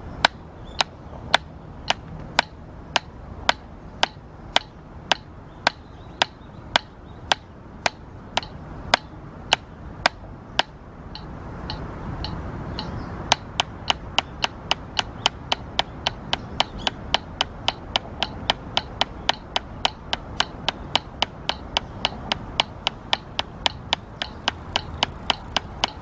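Wooden drumsticks striking a drum practice pad in evenly spaced single strokes, about two a second, with a short pause about eleven seconds in, then resuming at a faster steady pace of about three a second. A low steady background noise grows louder from about eleven seconds in.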